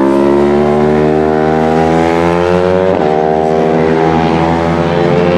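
Sport motorcycle engine accelerating hard on a race track, the revs climbing steadily. About three seconds in, a quick upshift drops the pitch and the revs climb again.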